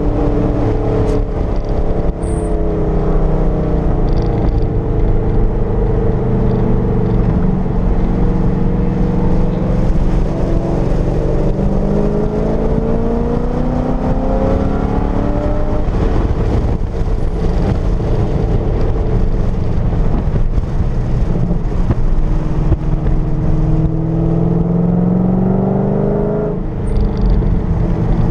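Chevrolet Corvette's V8 heard from inside the cabin under hard acceleration, rising in pitch in long sweeps with steady road and wind noise underneath. The pitch drops sharply near the end.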